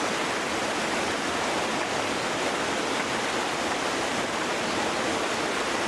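Fast-flowing floodwater rushing in a steady torrent.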